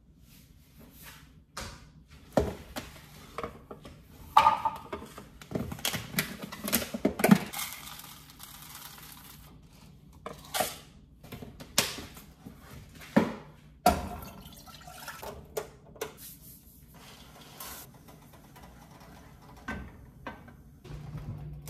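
Water and liquid sounds in a small room, with scattered clicks and knocks of things being handled.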